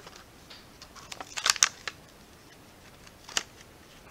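Clear plastic packaging around a toy die-cast car crinkling and crackling as it is handled, in a short burst about a second and a half in, then a single sharp click near three and a half seconds.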